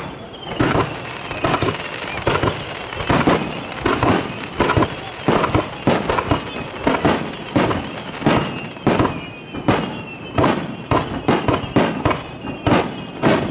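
Fireworks display: a rapid barrage of shells launching and bursting, about two bangs a second. A few high whistles fall in pitch over the bangs.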